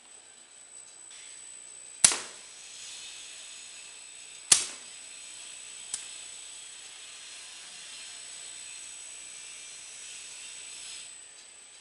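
Mouse trap glue board making machine running: two loud sharp clacks and a softer third one, with a steady high hiss that runs on after them and stops about eleven seconds in.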